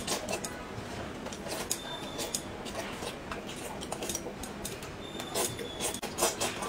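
Chopsticks clicking against a ceramic noodle bowl, with noodles being slurped and chewed; the slurps come loudest about five and a half and six and a half seconds in.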